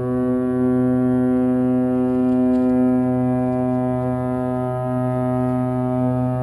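Submarine's horn sounding one long, steady, low blast, part of a horn greeting exchanged between submarines in port.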